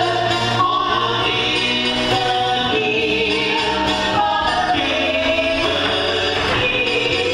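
A choir singing in several parts at once, holding long notes.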